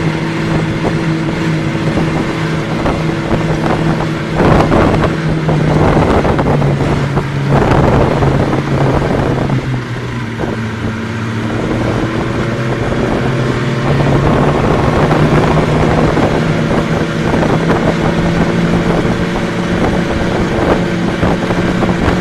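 Snowmobile engine running at speed, with wind buffeting the microphone. The engine note drops about ten seconds in and climbs back up a few seconds later.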